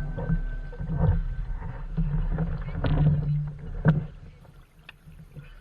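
A canoe on a river: a few sharp knocks against the hull, about one, three and four seconds in, over an uneven low rumble. It quietens near the end.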